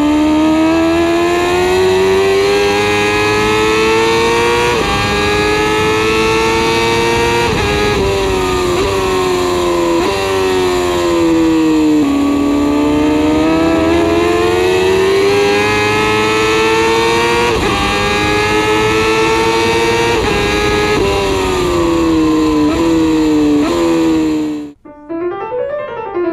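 2021 Honda CBR1000RR-R Fireblade SP's inline-four engine at speed on a racetrack, heard from a camera on the bike: it climbs in pitch through the gears with sharp drops at each upshift, and falls in quick steps on the downshifts for corners. Near the end it cuts off suddenly and a short piano jingle plays.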